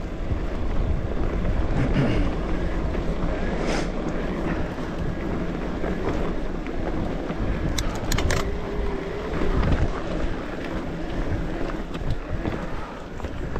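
Wind rushing over the microphone and a steady low rumble of a mountain bike rolling over a dirt trail, with a few sharp clicks about eight seconds in.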